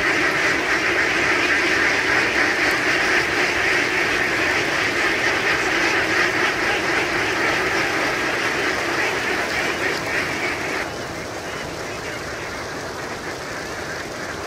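A large flock of domestic ducks quacking all at once in a dense, continuous chorus as the birds run in a mass. The chorus drops suddenly to a quieter level about eleven seconds in.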